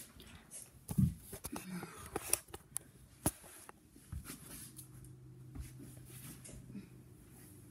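Scattered knocks, clicks and rustles of a person getting down onto a carpeted floor while the phone filming her is handled. A faint steady low hum comes in about halfway through.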